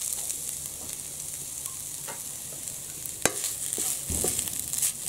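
Freshly grated coconut sizzling with a steady hiss as it dry-roasts in a hot kadai. A wooden spatula scrapes and knocks against the pan as the coconut is stirred, with one sharp knock a little past three seconds in.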